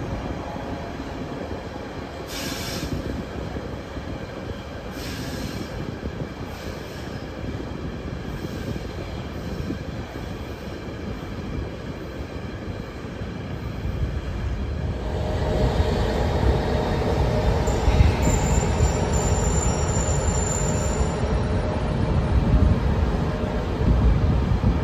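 Train running on the rails, the rumble growing louder a little over halfway through, with a high-pitched wheel squeal for a few seconds near the end.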